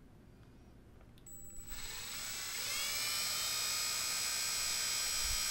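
Handheld electric drill starting up about a second and a half in, its whine rising in pitch and then running steadily as the bit bores down into a plumeria branch.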